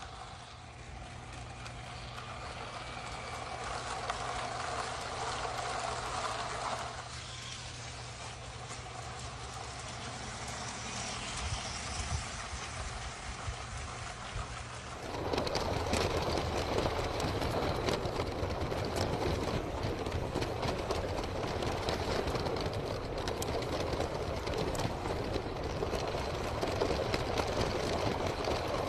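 LEGO electric train running on plastic track: a steady motor whir with wheels clicking over the track joints, louder and rougher from about halfway.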